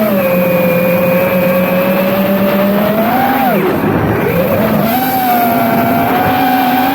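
FPV racing quadcopter's brushless motors and propellers whining. The pitch holds steady, rises and then drops sharply about three and a half seconds in as the throttle is cut, then climbs back and holds again.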